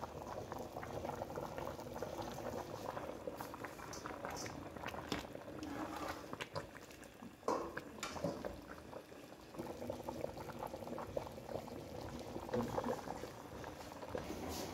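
Pot bubbling at a hard boil, a dense steady crackle of small pops, with one sharp knock about halfway through.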